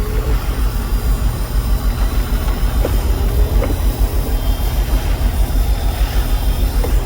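Steady, unevenly pulsing low rumble from inside a Jeep's cab as it idles in storm wind, with a pair of faint knocks about every four seconds.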